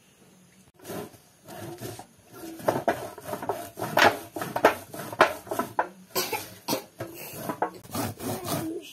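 Fresh corn being grated off the cob on a flat stainless-steel grater held in a metal basin: a quick run of repeated rasping strokes, starting about a second in.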